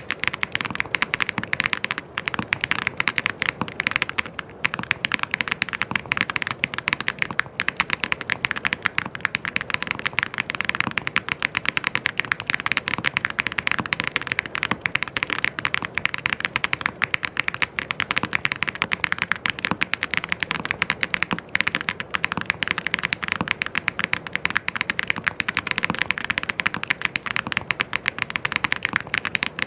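Fast, continuous typing on a mechanical keyboard, a dense stream of key clicks and clacks.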